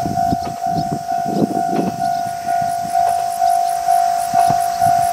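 Japanese railway level-crossing alarm bell ringing steadily, about two strikes a second, each a clear tone that fades before the next: the warning that a train is approaching. A gusty low rumble runs underneath.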